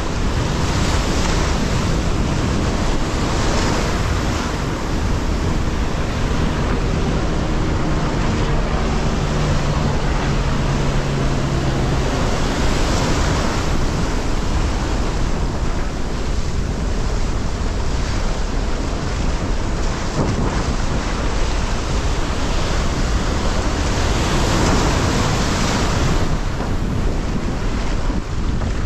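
Wind buffeting a GoPro's microphone over rushing, splashing water and breaking surf as a windsurf board sails through waves, swelling and easing every few seconds. A low steady hum sounds for a few seconds in the first half.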